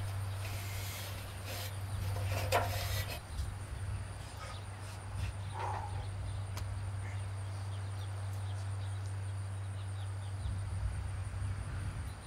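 Outdoor ambience: a steady low hum under a faint, steady high-pitched insect drone. A few knocks and rattles come in the first three seconds.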